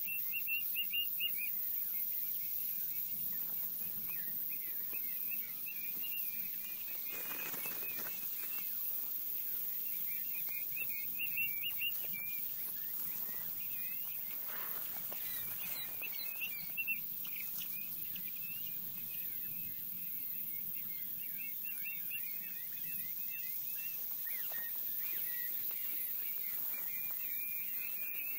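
Birds chirping and twittering steadily. Short bursts of sharp, higher clicking notes come a few times.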